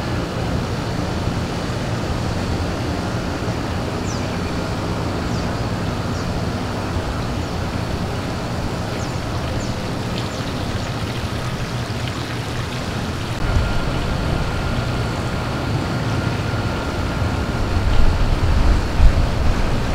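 Steady outdoor hum and hiss with no voices. From about two-thirds of the way in, wind starts rumbling on the microphone in gusts that grow stronger toward the end.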